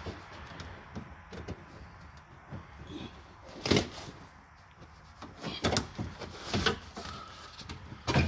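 Scattered clicks and knocks from hands and tools working the latch and handle parts inside a car door, with the loudest knock about four seconds in.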